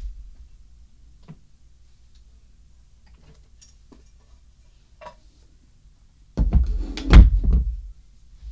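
Household rummaging: a few faint clicks and taps, then about six and a half seconds in a loud clattering bang lasting about a second and a half, like a door or drawer being worked.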